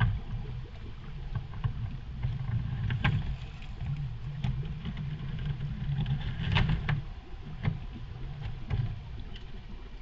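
Radio-controlled scale rock crawler driving slowly over creek rocks: an uneven low drivetrain hum with sharp clicks and knocks as its tyres and chassis strike the stones, several times.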